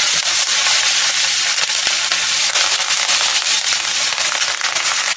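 Fresh curry leaves and mustard seeds spluttering in hot ghee as a tadka is tempered: a loud, dense run of rapid crackles and pops over a steady sizzle.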